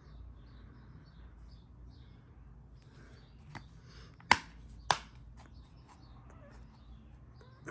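Two sharp plastic clicks about half a second apart near the middle, with a fainter click just before them: a Blu-ray disc case being handled. A faint low hum runs underneath.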